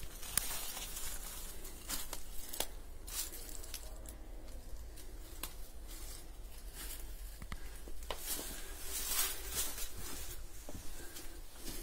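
Irregular crunching and rustling of footsteps on leaf litter and concrete debris inside a small concrete bunker, with scattered clicks and hissy swells over a steady low rumble.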